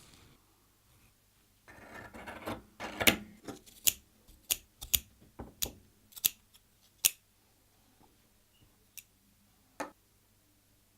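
Scissors cutting fake fur fabric: a rustle of the material handled, then a run of sharp snips about two a second, and two more snips a couple of seconds later.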